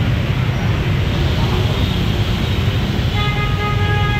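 Engines of a dense jam of scooters and motorbikes running in gridlocked traffic, a steady low rumble. A vehicle horn sounds for about a second near the end.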